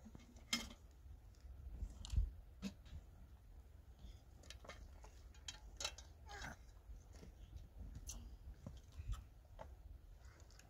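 Scattered faint clicks and light taps, a few a second and irregular, over a steady low rumble.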